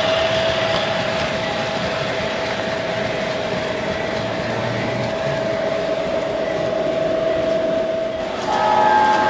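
MTH RailKing O-gauge Pennsylvania Railroad Aerotrain model running on three-rail track: a steady rolling rumble of the wheels with a steady whine. Near the end a chord of higher tones starts up, the model's sound-system horn.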